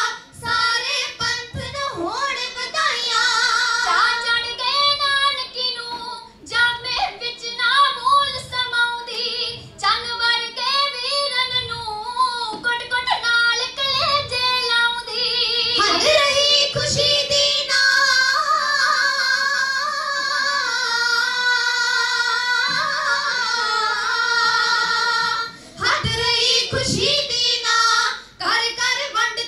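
Three girls singing kavishri, Punjabi verse sung in a bold, declamatory style without instruments, with long held notes in the second half.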